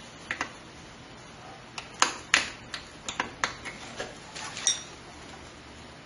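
Hands fitting parts inside a computer case: a run of sharp clicks and clacks, about a dozen, bunched between two and five seconds in.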